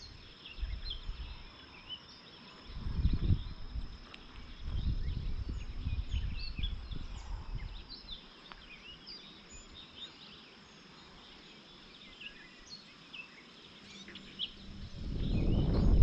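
Wind gusting across the microphone in low rumbling buffets, strongest around three seconds in, from about five to eight seconds, and rising again near the end, with birds chirping here and there in the marsh.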